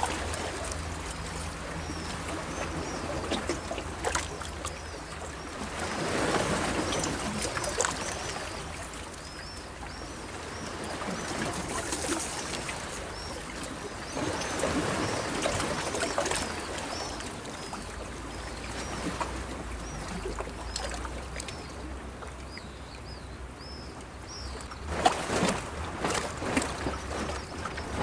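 Small sea waves washing and trickling among shoreline rocks, swelling up about every nine seconds, with faint high bird chirps over them and a few sharp clicks near the end.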